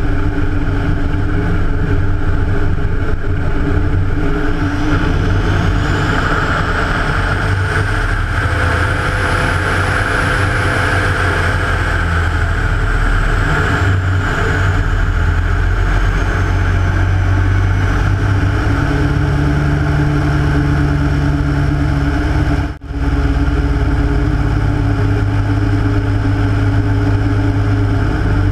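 Rotec R3600 nine-cylinder radial engine of a Hatz biplane running in flight, heard with loud rushing air over the wing-mounted camera. The rush of air swells through the first half along with a faint high whistle that rises and falls, the engine note shifts in the last third, and the sound drops out for an instant near the end.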